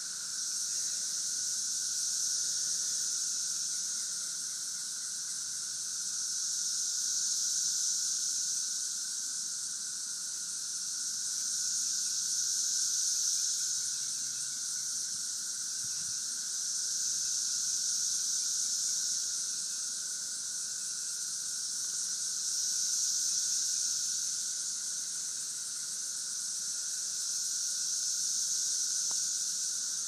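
Chorus of 13-year periodical cicadas (Brood XIX) singing in the trees: a dense high-pitched drone that swells and fades in waves about every five seconds over a steadier lower hum.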